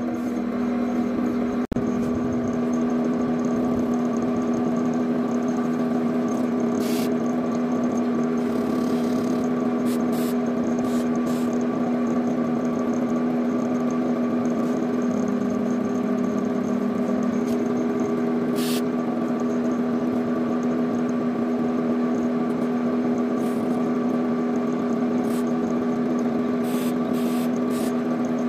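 Wood lathe's electric motor running steadily with a constant hum while the wooden workpiece spins without being cut. The sound drops out for an instant about two seconds in.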